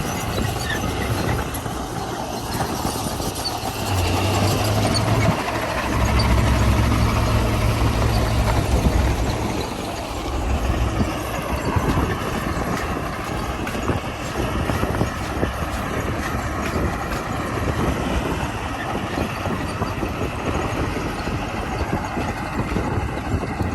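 Diesel engine of a Komatsu D41P crawler bulldozer running as it works gravel, pulling harder and louder for several seconds partway through, then settling back to a steady run.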